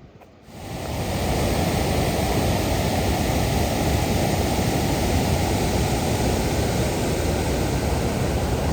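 Waterfall rushing: a loud, steady rush of falling water that fades in about half a second in and holds unchanged.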